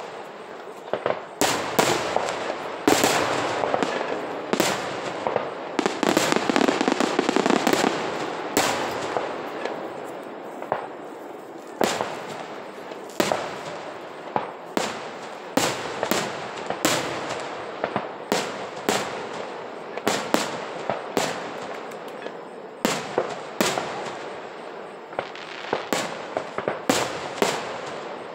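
Aerial fireworks shells bursting in rapid succession: a dense barrage of bangs with crackling between about two and nine seconds in, then sharp separate reports about one or two a second.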